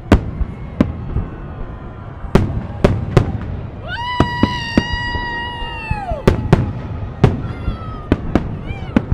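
Festive fireworks salute: aerial shells bursting in sharp bangs at uneven intervals, about a dozen in all. A long high whistle holds steady for about two seconds in the middle, then falls off.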